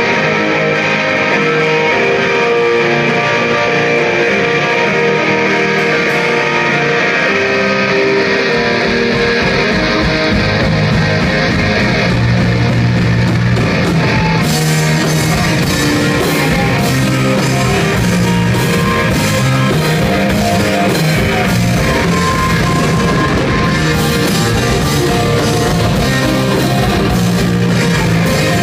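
Live rock band playing loudly: electric guitar plays on its own at first, the low end fills in about eight seconds in, and drums with cymbals join about halfway through.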